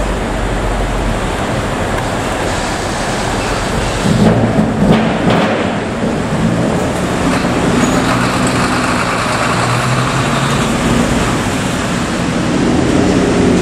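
Car engine and exhaust of a modified Lexus IS sedan revving loudly about four seconds in, then running steadily as the car rolls slowly past.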